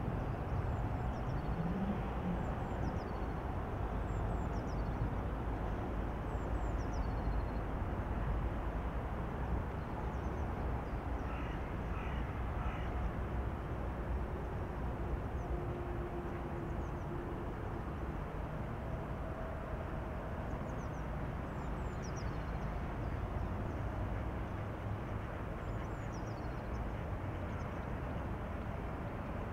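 Outdoor ambience: a steady low rumble, with small birds giving short, high, falling chirps again and again, and a bird calling three times in quick succession about twelve seconds in.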